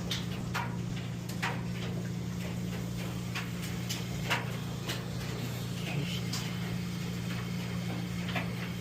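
Steady low hum of a running commercial washer, with scattered light clicks and taps over it.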